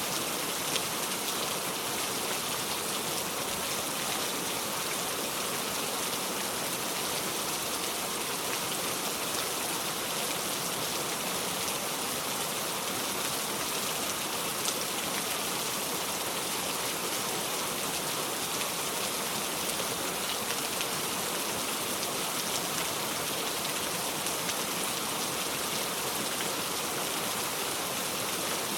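Steady rain falling: an even, unchanging hiss with faint scattered drop ticks.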